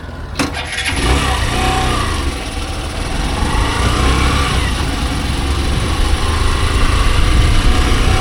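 Hero Super Splendor's single-cylinder 125 cc engine running as the motorcycle pulls away, its sound and the wind and road noise building steadily as it gains speed.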